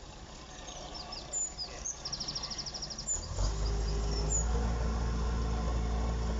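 Miniature-gauge diesel shunting locomotive's engine running as it moves slowly, swelling into a loud steady low rumble about three seconds in. Birds chirp over the quieter start.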